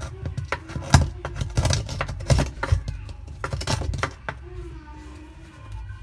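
A metal tool clicking, scraping and knocking against the washing machine's pulsator hub, with many sharp clicks over the first four seconds before it quietens.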